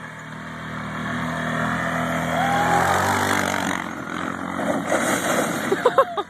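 ATV engine running as it tows a paddle boat across grass. It grows louder as the quad passes close by, loudest about three seconds in, then fades.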